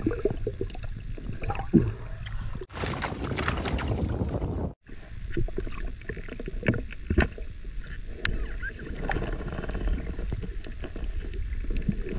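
Muffled underwater water noise: a steady rumble with bubbling, a few sharp clicks and knocks about two-thirds of the way through, and a brighter hissy stretch near the start that begins and ends abruptly.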